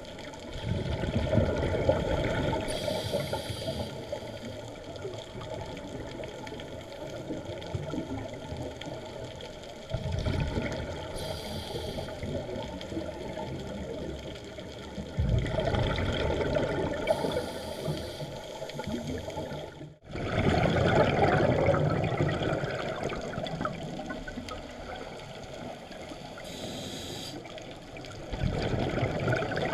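Scuba breathing through a regulator underwater, heard from the camera diver: a short hiss of inhaled air, then a longer bubbling gurgle of exhaled air. The cycle repeats about every five to eight seconds, four or five breaths in all.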